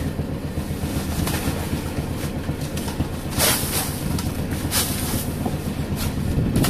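Fishing boat's engine running with a steady low hum, with rustling and scraping of crushed ice in the fish hold, loudest twice, about three and a half and five seconds in.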